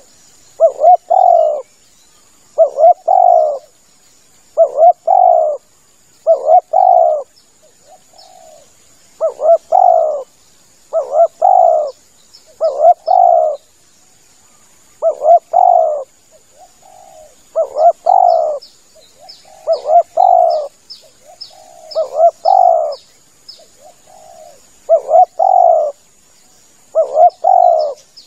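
Spotted dove cooing in a steady series of short two-part phrases, one every second and a half to two seconds.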